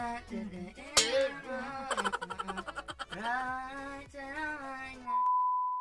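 Background music with a sung vocal melody. About five seconds in the music cuts off and a single steady high beep sounds.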